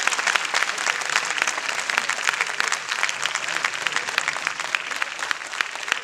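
An audience applauding: many hands clapping together, easing off slightly toward the end.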